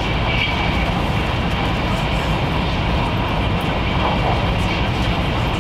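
Cabin noise inside a Taiwan High Speed Rail 700T trainset running at speed: a steady low rumble with a hiss above it, unchanging throughout.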